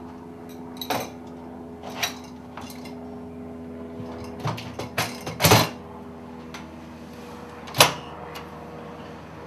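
A uPVC door's long metal multipoint lock mechanism being slid into the door edge, giving a string of knocks and metallic clicks as it goes in; the loudest knock comes about five and a half seconds in, with another sharp one near eight seconds. A steady low hum runs underneath.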